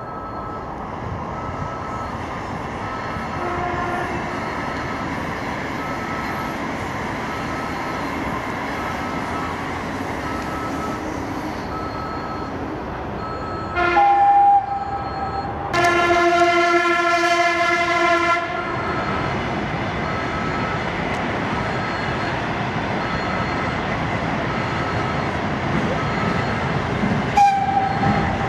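Level-crossing warning signal beeping about once a second over the rumble of an approaching train, which grows louder. About halfway in, the Sapsan high-speed electric train sounds its horn: a short high note, then a longer, lower chord lasting about two and a half seconds. A second short high note comes near the end.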